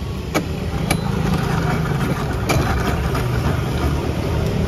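A steady low rumble with a few light clicks.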